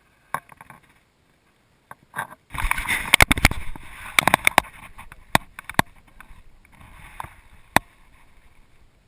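A flurry of sharp knocks and bumps on a small fishing boat's hull and deck over a rushing noise, starting a few seconds in, with one last single knock near the end.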